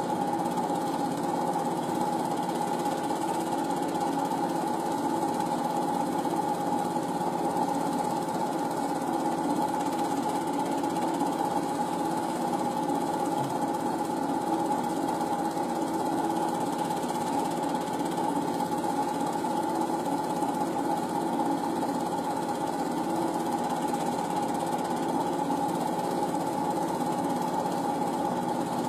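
Film projector running: a steady mechanical whirr with a constant tone, unchanged throughout.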